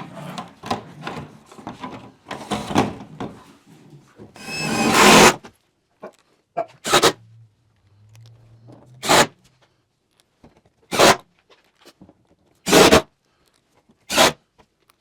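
A clear polycarbonate panel being handled and worked on a chicken coop wall: rubbing and scraping, a loud rasp about five seconds in, then five short sharp rasps about two seconds apart.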